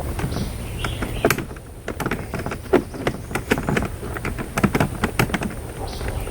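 Light, irregular clicks and taps of a small Master Lock padlock being handled and worked at with a blade of grass in its keyway, several a second at times, over a steady low hum.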